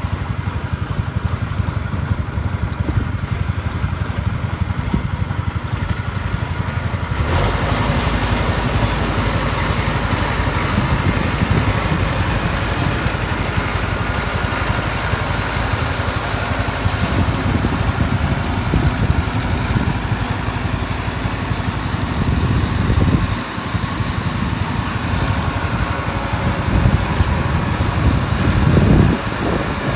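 Engine of rice-harvesting farm machinery running steadily under load; it grows louder and fuller about seven seconds in, dips briefly about three quarters of the way through, and swells just before the end.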